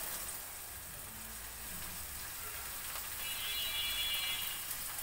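Low sizzling of pumpkin cubes frying in mustard oil in a kadai as wet, freshly washed gima saag leaves are tipped in. A brief high tone sounds a little after three seconds in.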